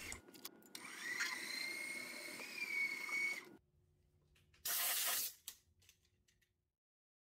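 Milling-machine spindle driving a twist drill into an aluminium connecting rod: a steady cutting sound with a thin high tone, stopping abruptly about three and a half seconds in. About a second later comes a short, loud hiss of air blowing the chips off the work.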